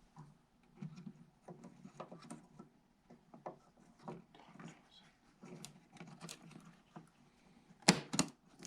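Quiet handling of PC parts, light taps and rustles as RAM sticks are fitted into the motherboard's memory slots. Near the end come two sharp, loud clicks, typical of the slot latches snapping shut as the modules seat.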